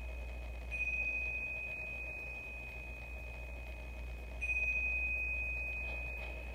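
A small hand-held chime struck twice, about four seconds apart, each strike ringing one high, clear tone that fades slowly, over a low steady hum.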